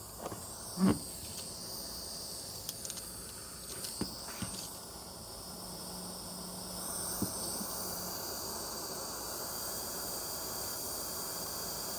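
Small handheld gas torch hissing steadily as its blue flame heats an orthodontic band on a plaster model for soldering, a little louder from about seven seconds in. There is a sharp click about a second in.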